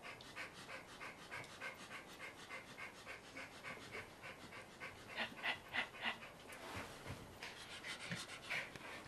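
Schipperke panting fast and hard from exertion after repeated high jumps, about five breaths a second, louder for a moment around five to six seconds in.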